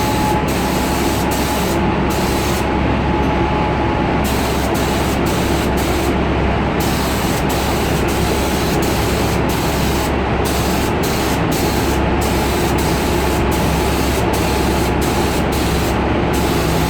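Air-powered paint spray gun hissing as the car is sprayed, the hiss breaking off many times for a moment as the trigger is let go, the longest break about three seconds in. A steady machine hum runs underneath.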